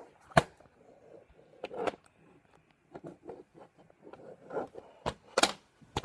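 Handling noise from a phone camera being moved and set in place: scattered knocks and taps, the sharpest about half a second in and two more near the end, with rustling between them.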